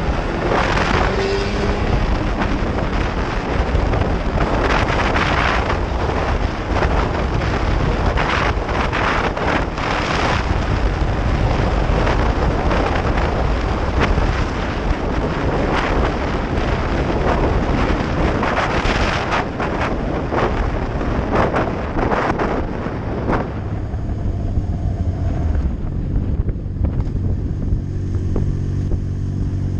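Yamaha R6 inline-four sport bike engine running on the move, largely buried under gusty wind noise on the microphone. Near the end the wind drops away and a steady, even engine note comes through clearly.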